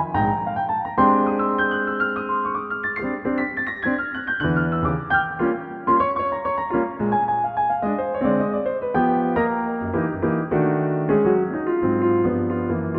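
Solo jazz piano playing fast single-note runs over lower chords, at a steady moderate-to-loud level. It is a Pianoteq modelled-piano rendering of a neural-net transcription of a bebop performance.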